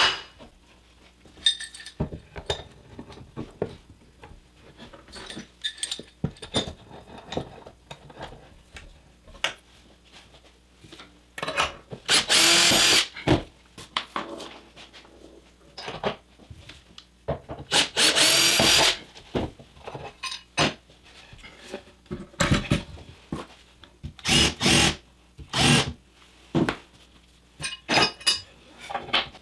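Cordless drill-driver run in short bursts, fastening bolts and nuts that hold an aluminium rail to the board: two runs of about a second near the middle, several shorter ones later. Small clicks and knocks of hardware and handling between them.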